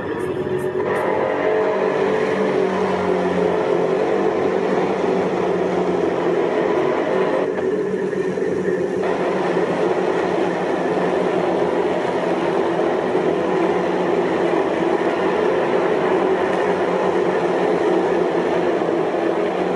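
NASCAR Whelen Euroseries stock cars' V8 engines running at race speed, a steady loud engine sound as several cars pass on the track one after another.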